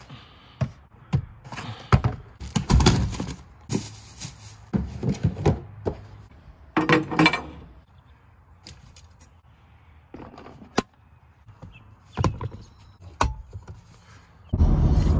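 Rustling of clothes and a plastic bag, with scattered thuds and sharp knocks, as gear is handled and packed inside a pickup truck's cabin. Near the end it switches abruptly to the steady road and engine noise of the truck driving.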